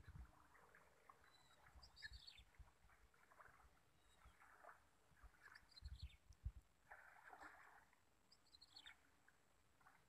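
Faint bird calls: a quick run of short high notes falling in pitch, repeated three times about three seconds apart. Low thuds on the microphone, the loudest a little past the middle.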